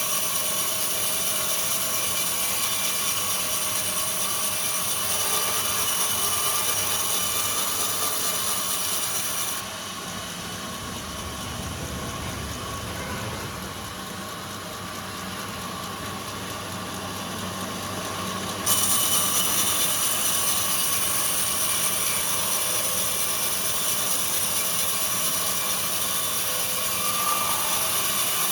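Sawmill saw and machinery running steadily with a high whine. For about nine seconds in the middle the whine drops away suddenly and a lower rumble takes over, then the whine comes back just as suddenly.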